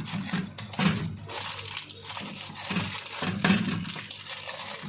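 Plastic packaging crinkling and rustling as it is handled, with a few handling knocks, around a stored pack of cashews and raisins.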